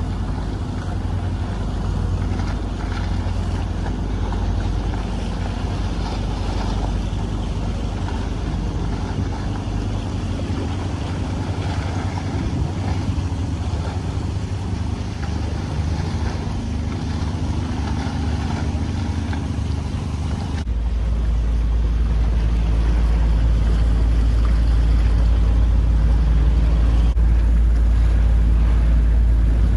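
A small motorboat's engine running, with water noise and wind on the microphone. About two-thirds of the way through it suddenly grows louder, with a heavier deep rumble.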